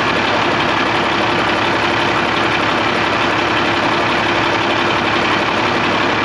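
Cummins L10 inline-six diesel idling steadily, heard up close in the engine bay. It keeps running with the fuel shutoff solenoid's manual override thumb screw backed out and the key on.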